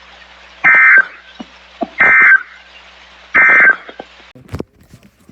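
Three short bursts of EAS SAME digital data tones from NOAA Weather Radio, about a second apart, each a brief two-tone buzz. They are the end-of-message code that closes the severe thunderstorm watch broadcast. A steady radio hiss lies under them and cuts off after the third burst, followed by a few faint clicks.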